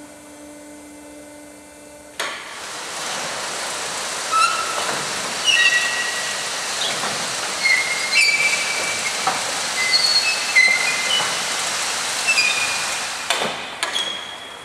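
Crate stacking and destacking line moving a layer of plastic crates onto its conveyor table: a low machine hum, then a sudden steady rushing hiss about two seconds in, with scattered short high squeaks as the crates slide. A few sharp clacks near the end as the layer comes to a stop.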